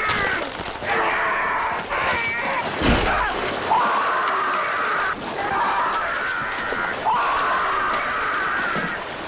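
A man screaming in agony again and again as a shark bites into him: long wavering cries with short breaks between them. A heavy thud lands about three seconds in.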